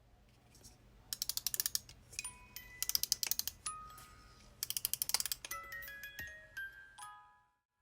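Wind-up music box being wound: three runs of rapid ratchet clicks from the winding key, while the metal comb starts plucking scattered single notes that come more often towards the end as the tune gets going.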